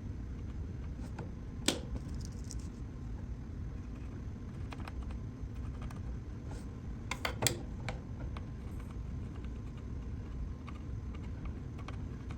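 Scattered light clicks and taps of small hand tools being handled at a workbench while desoldering with solder wick and a soldering iron, over a steady low hum. One louder click comes about two seconds in and a quick pair about seven seconds in.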